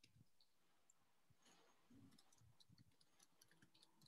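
Near silence: faint room tone with a few scattered faint clicks.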